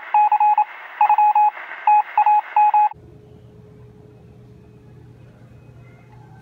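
Telephone dialing tones: a quick, uneven run of short beeps heard with the thin sound of a phone line, lasting about three seconds. They stop suddenly, leaving only a low steady hum.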